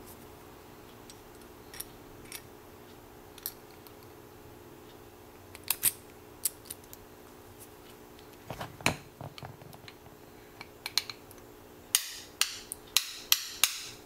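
Scattered metal clicks of a dimple bump key with a rubber O-ring being slid into and handled in a brass Burg Wächter Boccia 450/50 dimple padlock. This is followed near the end by about five sharp taps, which are the bump key being struck with a bump hammer to bump the lock.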